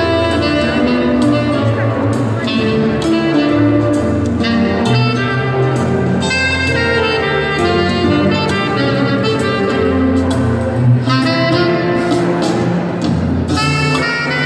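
Instrumental music playing throughout: a melody of held notes over a steady bass line.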